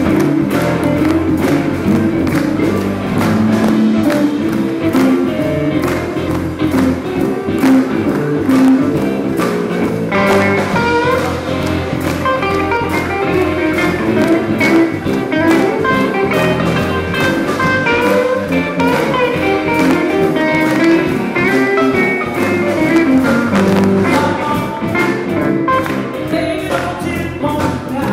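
A live blues band playing, with electric guitars, bass guitar and drums.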